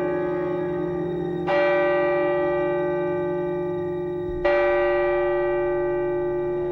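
A bell tolling slowly, struck about every three seconds: two strikes in this stretch, each ringing on and fading before the next.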